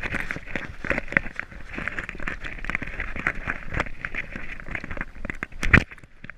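Rubbing, rattling and clicking of a GoPro camera worn on the collar of a running Boston terrier, its housing shaken and scraped as the dog moves. A loud knock near the end.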